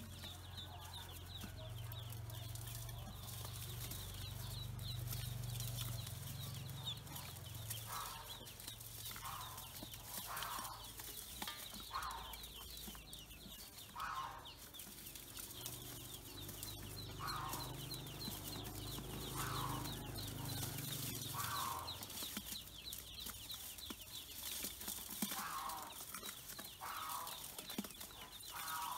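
A group of ducklings peeping constantly in high, short calls while their bills click at grain feed in a metal bowl. From about a quarter of the way in, a lower, falling call repeats every second or two.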